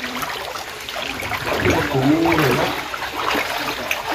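Water running and splashing steadily, with a person's voice calling out briefly about two seconds in.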